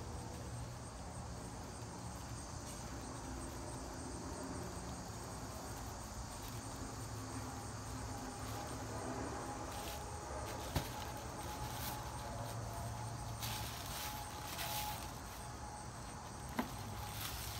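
Paper gift bag and tissue paper rustling as a gift is untied and lifted out, with two sharp clicks, over a steady faint high-pitched background drone.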